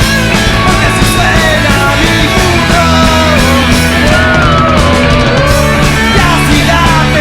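Punk rock band playing loudly with drums, bass and guitars, and a bending lead melody over it, with no sung words.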